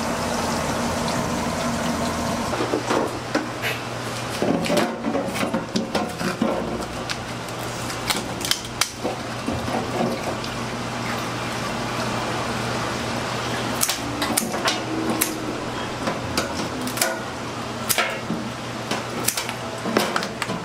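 A king crab being handled in a perforated stainless steel steamer basket: scattered knocks and clatter of shell and metal over a steady rushing, watery kitchen noise.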